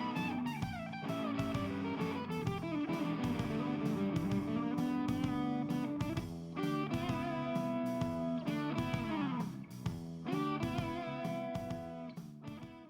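Background music: an electric guitar plays a melody with sliding, bending notes over a steady drum beat, fading out near the end.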